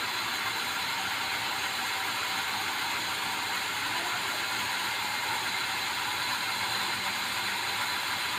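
Band sawmill running steadily between cuts, its blade spinning free, while the log carriage with a squared red meranti log is rolled along its rails with a mechanical rattle.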